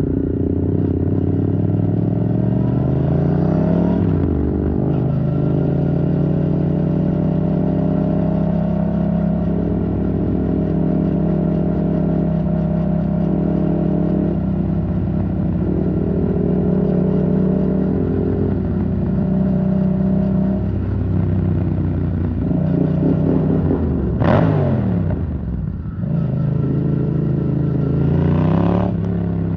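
Yamaha MT-07's parallel-twin engine through an Arrow Thunder titanium exhaust, ridden on the road. It rises in revs in the first few seconds, then holds a fairly steady cruise. Late on, a quick rev flares up and drops straight back, and the engine builds again near the end.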